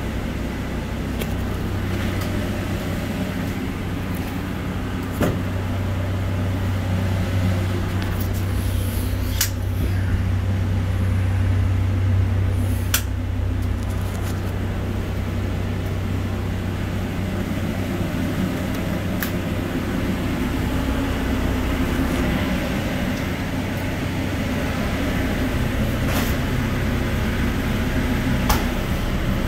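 An engine running with a steady low hum that grows stronger for several seconds in the first half, with a few light clicks and knocks.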